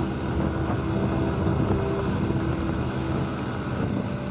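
Motorcycle engine running steadily under load on a steep uphill climb, struggling to pull. The rider suspects worn clutch plates.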